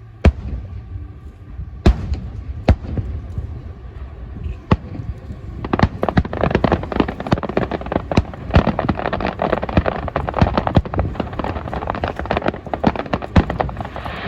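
Fireworks going off: a few separate sharp bangs, then from about six seconds in a dense barrage of rapid bangs and crackling.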